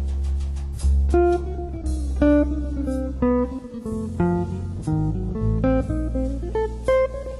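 Background music: a plucked guitar melody over a low bass line.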